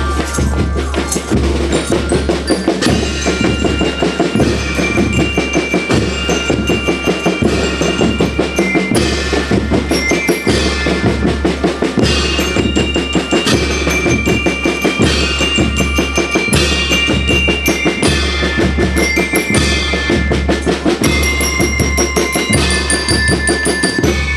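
School rhythmic marching band playing. Snare and bass drums beat a steady, fast rhythm while bell lyres ring a melody above them.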